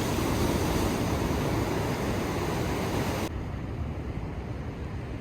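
Steady rushing noise with no clear tone. About three seconds in it switches abruptly to a duller, quieter rush.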